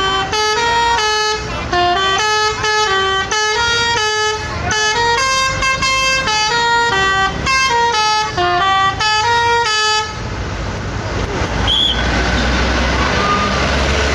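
A bus's basuri musical air horn playing a tune of quick stepped notes for about ten seconds, then stopping. A low rumble follows.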